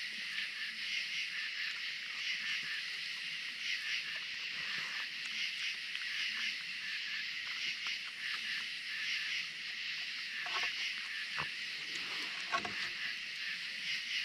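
Raccoons eating from a wooden feeding table, with a few sharp knocks and crunches about ten to thirteen seconds in. Under them runs a steady high chirring chorus of night insects.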